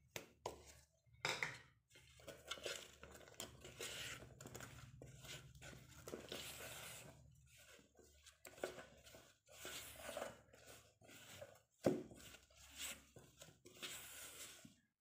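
A spatula stirring flour into egg batter in a metal mixing bowl: soft scraping with irregular taps and knocks against the bowl's side, and one sharper knock near the end.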